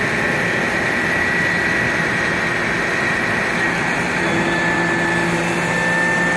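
Crane engine running steadily with a high, steady whine over it as the sign hangs on the hoist cables.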